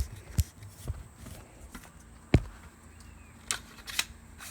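Scattered clicks and knocks, the loudest about two and a half seconds in, from a hood prop being handled and adjusted to shorten it.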